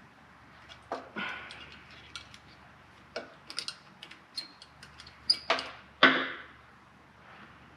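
Irregular sharp metal clinks and knocks, a few of them ringing briefly, from valve-train parts of a Ford 4.0 V6 cylinder head being worked apart. The three loudest come close together between about five and six seconds in.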